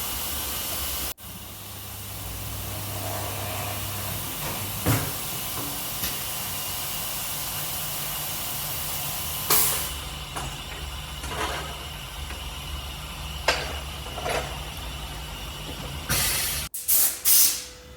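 Tyre-fitting work in a garage: a steady machine hum with several short, loud hisses of compressed air, the last few close together near the end.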